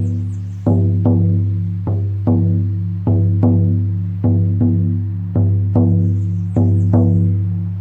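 Lakota healing frame drum struck in a steady heartbeat rhythm: pairs of beats, about one pair every second and a bit, each beat ringing low and dying away before the next.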